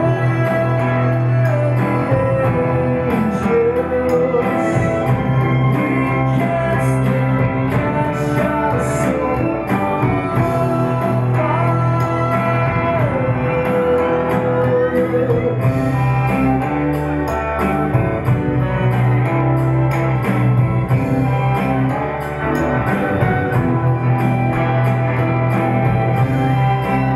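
A man singing a rock/blues song live, accompanying himself on a Telecaster-style electric guitar.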